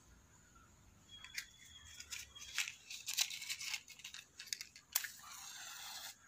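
Irregular crackling and sharp clicks for a few seconds, then a sharp strike about five seconds in, followed by a short hiss that cuts off suddenly: a match being struck and flaring.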